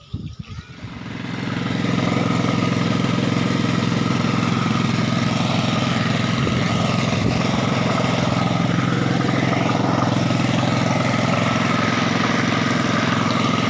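A small engine comes up to speed about a second in, then runs steadily at an even pitch.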